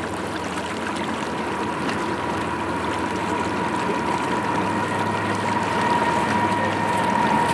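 Steady rush of flowing floodwater, with a thin, constant high hum running underneath.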